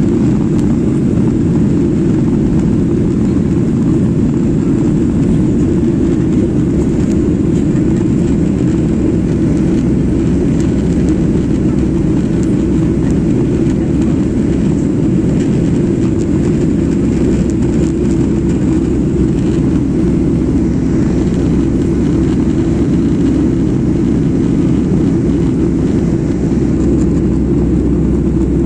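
Passenger cabin noise of a jet airliner in flight: the engines and rushing air make a steady, loud, deep rumble that does not change.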